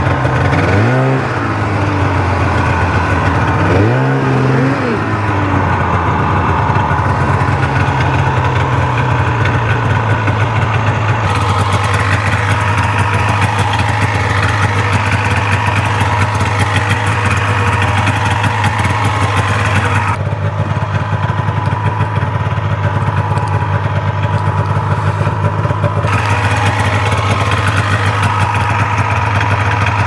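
Polaris snowmobile engine running at idle, revved briefly twice in the first few seconds, while it is worked onto a storage skid.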